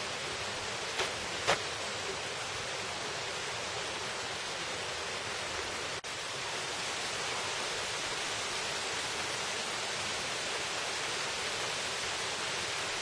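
Steady rush of water in a mountain valley stream, with two sharp clicks about a second in and a momentary break near the middle.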